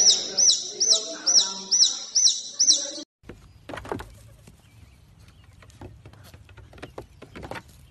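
Domestic chicken chicks peeping, loud high chirps repeated evenly about two and a half times a second, cutting off suddenly about three seconds in. After that come a faint low rumble and a few sharp clicks and knocks.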